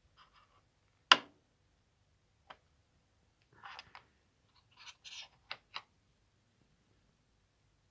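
Steel knife blank and drill bits, used as alignment pins, being handled by hand: one sharp metallic click about a second in, then light ticks and short scrapes as the bits are pushed through the holes and the pieces are moved, ending with two quick clicks.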